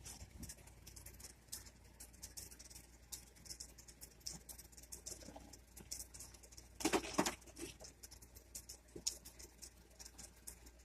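Faint scattered clicks and rustles of hands untying and handling the fastenings of an air conditioner, with a louder clatter about seven seconds in.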